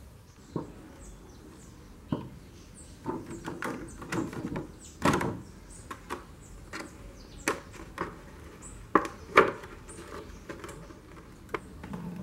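Irregular clicks, taps and knocks of hands handling small plastic parts, with the loudest knock about five seconds in and two sharp ones close together near nine seconds.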